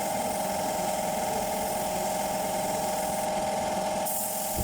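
Power tool motor running steadily at one even pitch.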